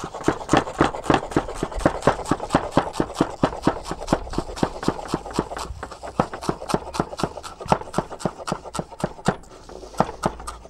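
Chef's knife chopping fresh herbs (garlic chives, lovage and flat-leaf parsley) on a wooden cutting board: a quick, even rhythm of knocks, about four a second.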